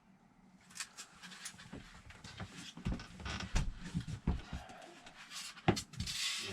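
Handling noises of work on the fitted water heater: an irregular run of knocks, taps and rubbing, with one sharp click near the end.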